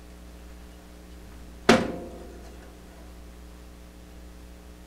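A single sharp metallic knock on the band saw's metal table, about a second and a half in, with a short ringing tail, over a steady low electrical hum.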